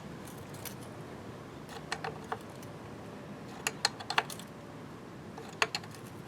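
10 mm wrench clinking on the KX80's chain adjuster bolt as the bolt is turned a flat at a time to tighten the drive chain: light metallic clicks in small clusters, a few at a time.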